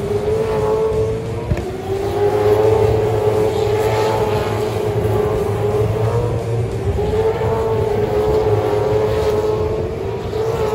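Supercars V8 race cars passing at speed, their engines at high revs with a strong, steady high note that rises and falls slightly as the cars go by.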